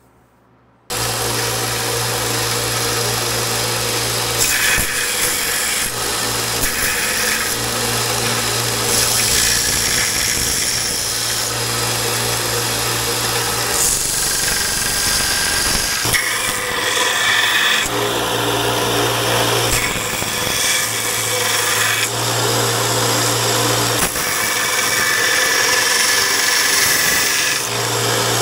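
Belt sander with an 80-grit belt rough-grinding the profile of a steel knife blade: a steady motor hum under a harsh grinding hiss that shifts as the blade is pressed and moved on the belt. It starts about a second in.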